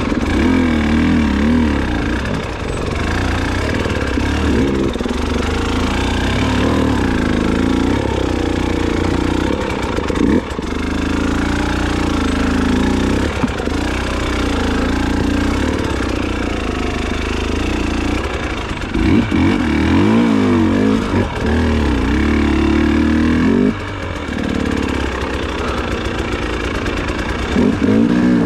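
Engine of an off-road vehicle running hard, its pitch rising and falling again and again as it revs and changes gear, over a steady low rumble.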